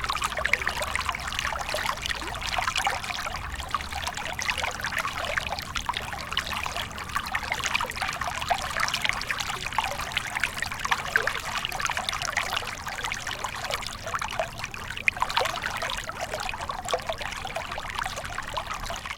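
Small stream of water trickling and babbling over stones, a steady stream of bright splashy bubbling.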